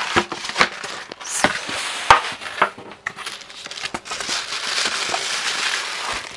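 Packing being pulled out of a cardboard TV box: a foam block and sheet packing rustling and crinkling, with scattered knocks and scrapes against the cardboard. The crinkling is denser and steadier in the second half.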